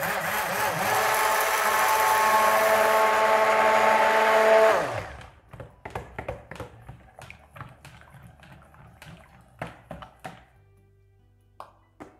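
Handheld stick blender running in soap batter: a steady motor whine for about five seconds that winds down in pitch as it is switched off. After it stops, a scatter of light knocks and clicks against the bowl, fading out.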